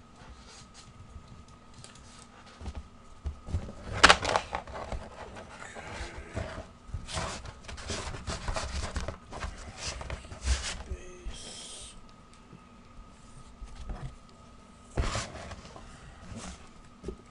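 Handling noise as cards are packed away into a box: scattered knocks and rustling, a sharp knock about four seconds in, a busier spell of clicks and rustling in the middle, and another knock near the end, over a faint steady hum.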